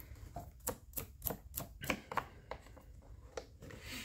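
Light, irregular plastic clicks and taps, two to three a second, as the plastic air filter cover is worked off an Echo CS-271T top-handle chainsaw.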